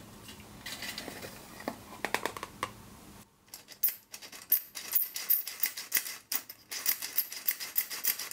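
Stainless steel squeeze-handle flour sifter being worked, its blades clicking against the mesh in a quick, even rhythm as gram flour sifts through. In the first three seconds there are only a few softer, scattered clicks as the flour is tipped into the sifter from a scoop.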